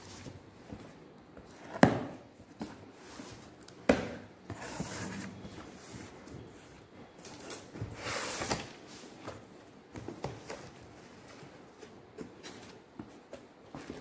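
Cardboard box being opened and unpacked by hand: two sharp knocks about two and four seconds in, the first the loudest, then cardboard flaps scraping and rustling, longest around eight seconds in.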